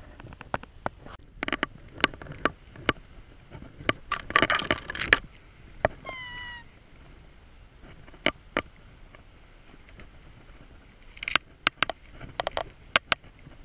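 Footsteps crunching and twigs snapping as someone walks through dry forest undergrowth, with heavier brush rustling about four seconds in and again near the end. A single short high call, from an animal, is heard about six seconds in.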